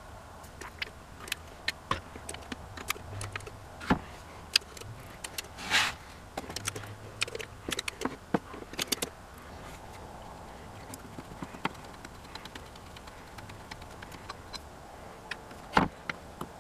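Scattered light metallic clicks and taps from the parts of an old cast-iron Acme staple binder being handled and worked. A short spray hiss comes about six seconds in.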